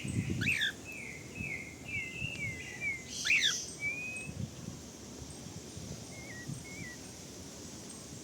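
A songbird singing a run of short whistled notes, with two louder sweeping calls, one near the start and one about three seconds in, and a few fainter notes later on.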